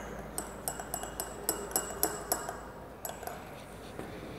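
A stirrer clinking against a small glass beaker while cold-setting mounting powder and liquid are mixed: a quick run of light clinks, about four a second, that stops about halfway through, with a few fainter ones after.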